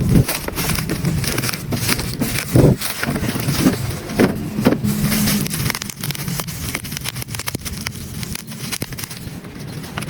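Small electric gear motors of a remote-control excavator whining, with frequent clicks and crunching, as of gears and tracks working over gravel or dirt.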